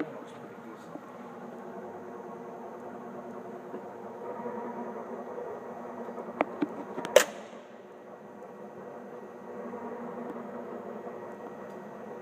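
Allen MAT drill press running with a steady machine hum. A couple of sharp clicks come a little past the middle, then one louder clack.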